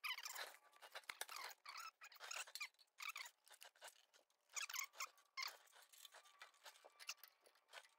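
Faint, irregular clicking, scraping and squeaking of metal parts and hand tools as a cotter pin is worked into a tractor's band brake linkage.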